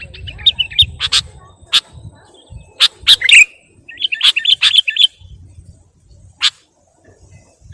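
Sooty-headed bulbul (kutilang) calls used as a bird lure: a string of sharp, loud chips interspersed with short, fast chattering runs.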